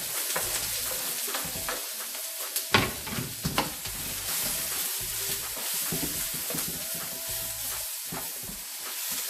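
Chopped garlic, green onions and onion sizzling in hot oil in a wok while being stirred, the utensil knocking and scraping against the pan; two sharper knocks come about three seconds in.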